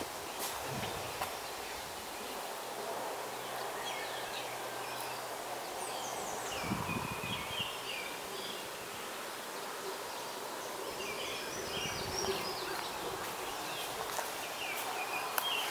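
Summer woodland ambience: a steady hum of insects with birds chirping in short runs near the middle and again later, and a couple of low thumps.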